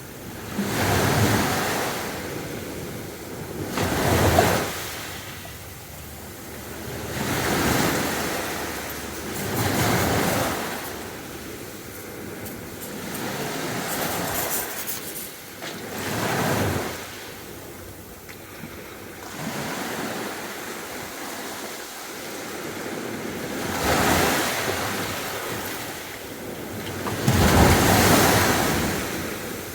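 Sea waves breaking on a beach and washing back, one surge every two to four seconds, with a quieter spell about two-thirds of the way through.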